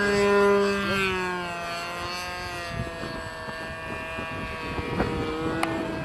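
Radio-controlled model airplane's motor and propeller running with a steady pitched note. The pitch falls about a second in and settles into a lower steady note in the second half.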